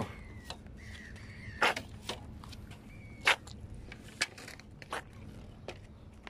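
Scattered sharp taps and scuffs on wet ground, about seven over six seconds, as a landing net and a freshly caught cuttlefish are handled. Faint high whistling tones sound now and then.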